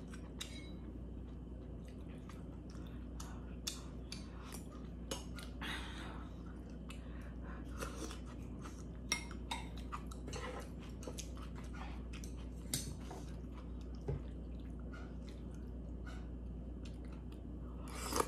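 A person chewing a mouthful of chicken noodle soup close to the microphone, with scattered light clicks and knocks of a utensil against the dishes. A steady low hum runs underneath.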